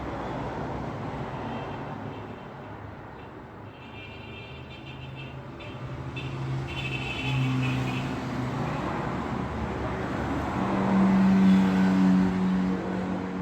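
Road traffic: the engines and tyre noise of passing vehicles, with a low engine hum swelling as a vehicle passes close near the end.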